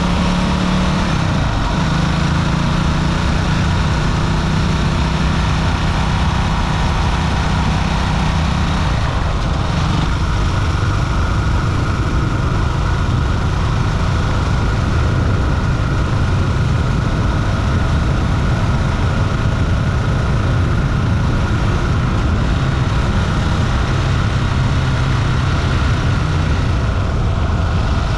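Honda CB400SS single-cylinder engine running while the motorcycle is ridden. The engine note shifts in pitch about a second in and changes again about nine seconds in.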